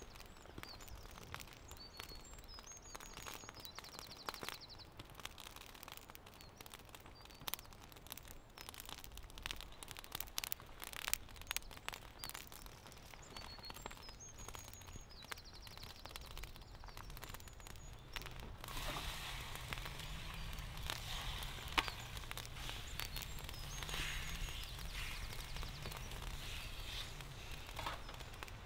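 Outdoor ambience with scattered crackles and sharp clicks and a few faint bird chirps. About two-thirds of the way through, a fuller steady hiss with a low hum comes up.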